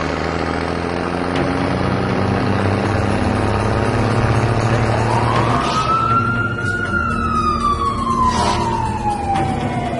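Emergency vehicle siren: over a steady low rumble, the siren winds up quickly about five seconds in, then falls slowly in one long wail.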